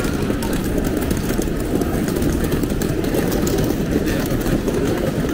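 Steady city street noise, mostly the low running of passing vehicle traffic, with no single event standing out.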